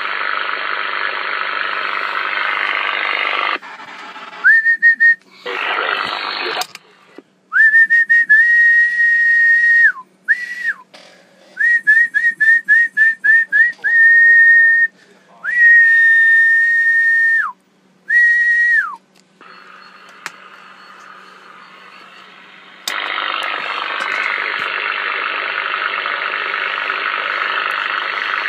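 Hiss from a President Lincoln 10-metre transceiver's speaker, then a person whistling steady notes of one pitch into it while transmitting, including a quick run of short pips, each note sliding down as it stops. The loud hiss returns near the end.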